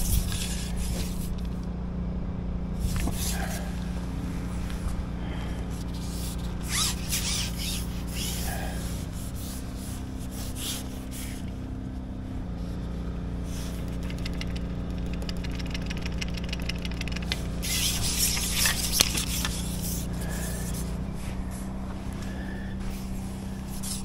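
A jet washer running in the background: a steady motor hum that shifts pitch a couple of times, with hissing bursts of spray that come and go, the loudest about 18 seconds in.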